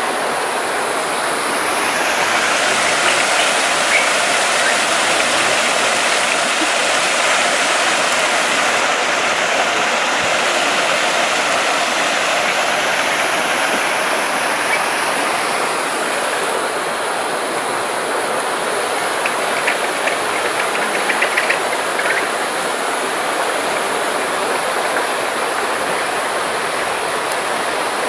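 Steady rushing of running water, like a waterfall or stream, loud and unbroken.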